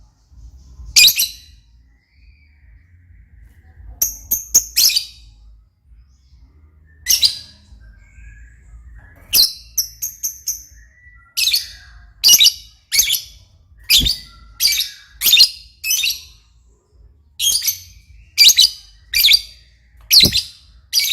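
Lovebird chirping in full voice: sharp, high, shrill calls repeated about a dozen times, some in quick runs of three or four notes.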